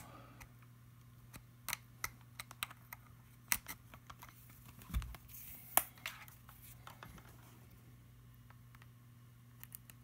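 Scattered small plastic clicks and taps as a white USB charging cable is handled and plugged in, over a faint steady low hum. The clicks stop about seven seconds in.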